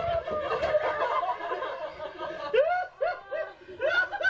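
People laughing: a run of short rising-and-falling laughs, several in a row about two and a half seconds in.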